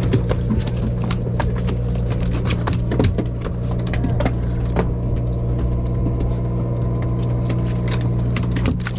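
Sportfishing boat's engine running with a steady low hum, with scattered sharp clicks and knocks on deck, more of them in the first few seconds.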